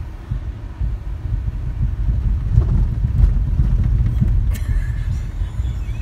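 Heavy, uneven low rumble inside a car's cabin as it drives over a potholed, muddy dirt road, the tyres and suspension jolting with scattered thumps; loudest about three seconds in.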